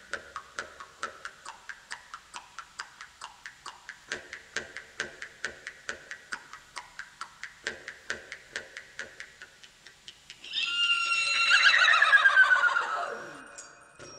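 Soundtrack of even, dry clicking, about four to five clicks a second. About ten seconds in, a loud wavering cry like a horse's whinny slides down in pitch over about three seconds and fades out.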